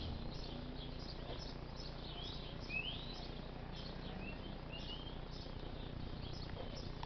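Small birds chirping quickly and continuously, with a few louder rising calls about three seconds in, over a steady low rumble of background noise.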